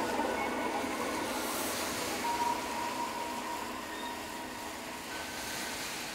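Experimental live electronic music: a steady noisy haze like distant rumbling traffic, with faint held high tones, slowly growing quieter.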